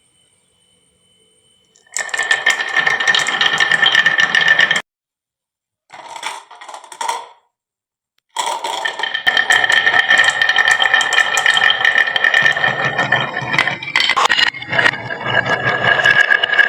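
Many glass marbles rolling and clattering down a wooden marble run, a dense rattle of clicks with a ringing tone. It starts about two seconds in, cuts off abruptly twice, with a short quieter burst between, and runs on steadily through the second half.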